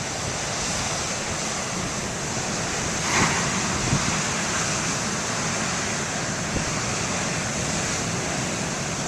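Big ocean waves breaking: a steady rush of surf, with a slightly louder surge about three seconds in.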